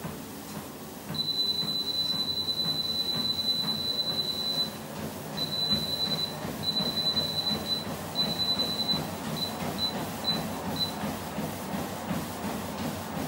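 Dripex folding treadmill speeding up from a walk to a jog: a high electronic beep sounds for about three and a half seconds, then breaks into a run of ever-shorter beeps. Meanwhile the belt motor runs and footfalls thud on the deck, louder from the first beep on and settling into a quicker jogging rhythm.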